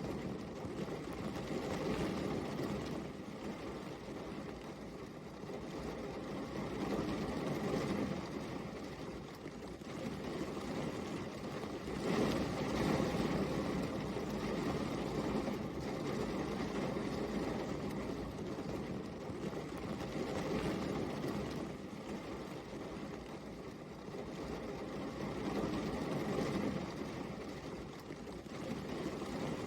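Steady rain: an even rushing noise that swells and eases every few seconds.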